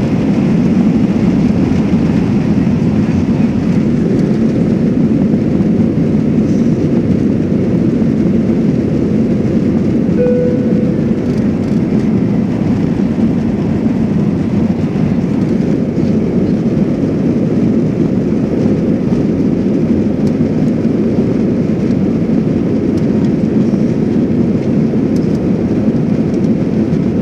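Cabin noise of an Airbus A321's CFM56 engines at take-off thrust, a loud, steady, deep rumble heard through the fuselage as the airliner lifts off and climbs out. A brief short tone sounds about ten seconds in.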